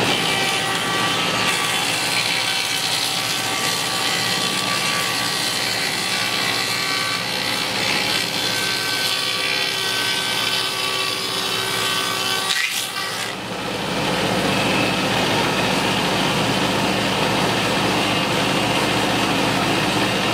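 Spindle moulder (wood shaper) running, its cutter shaping the edge of a wooden board fed along the fence: a steady machine whine over the noise of cutting wood. The sound briefly drops about thirteen seconds in.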